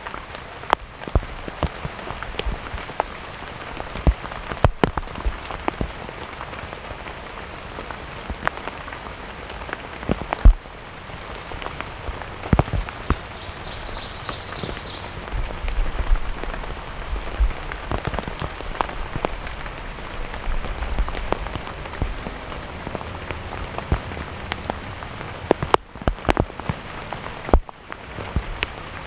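Heavy rain pouring steadily, with many loud single drops striking close by as sharp irregular taps.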